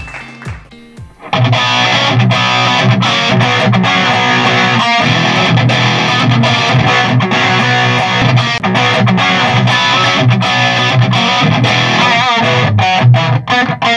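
A short jingle fades out, then about a second in a distorted electric guitar starts playing a loud melodic riff through an amplifier, with wavering vibrato bends near the end.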